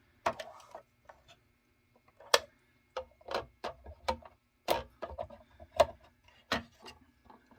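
Small 3D-printed plastic drawers and doors of a scale shop cabinet being opened and shut by hand: a string of light, irregular clicks and knocks.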